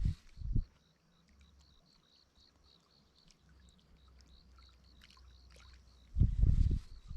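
Outdoor sound with a faint high chirp repeating about three times a second, like an insect calling. Low rumbling buffets come about six seconds in, like wind or handling on the microphone.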